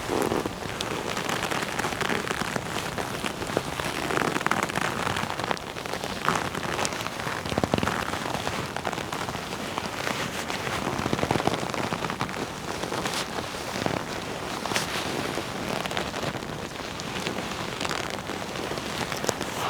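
Leather jacket being rubbed and handled: a continuous creaking rustle of leather on leather, with frequent small sharp crackles.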